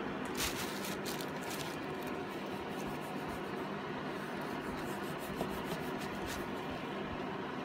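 Electric fan heater running steadily, with a few short rustling scrapes of a foam applicator being rubbed over plastic trim and the plastic sheeting beneath, mostly in the first couple of seconds.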